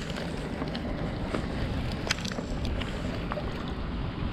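Steady wind noise rumbling on the microphone, with a few faint clicks.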